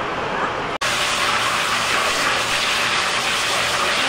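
Brief market background, then a cut to a steady hiss of water spraying from a hose onto a piece of tripe on a cutting board as it is washed.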